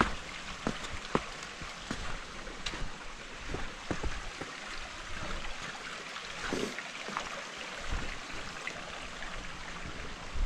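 Water falling and running: a steady rushing hiss with many scattered drips and splashes.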